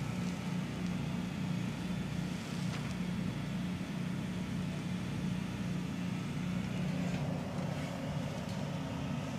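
Portable generator running steadily, a constant low hum.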